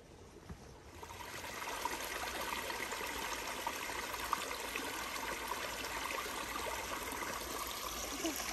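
Small mountain creek trickling over rocks, a steady rush of water that comes in about a second in.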